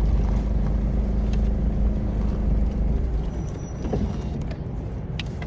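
A steady low motor rumble with a constant hum that stops about three seconds in, leaving a quieter rumble.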